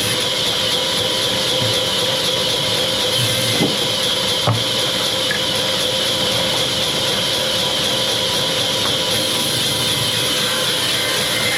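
Sawmill machinery running steadily, a constant hiss and whine with two short knocks about three and a half and four and a half seconds in.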